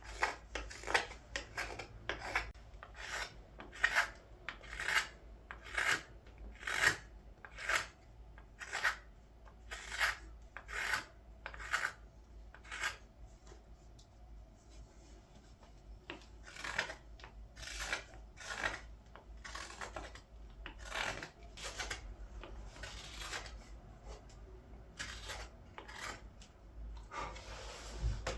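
Knife cuts shaving green wood from a ladle being carved: short slicing strokes, about one a second, with a brief pause partway through.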